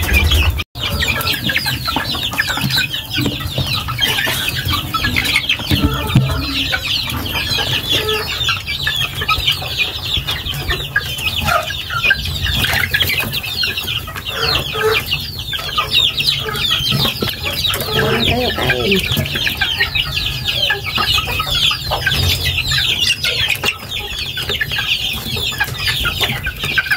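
A flock of young chickens peeping in a continuous high chorus while they feed at a trough, with a few lower clucks about two-thirds of the way through.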